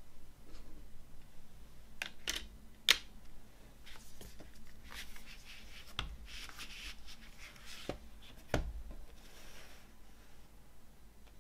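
Hands handling a cardboard CD digipak and its paper booklet: soft rustling of pages being leafed through, with a handful of light taps and clicks as the case is closed and set down on a wooden table, the sharpest about three seconds in and near the end.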